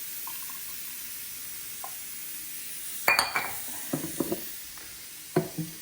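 Cups and coffee-making gear clinking together several times, about three seconds in, around four seconds, and near the end, over a steady faint hiss.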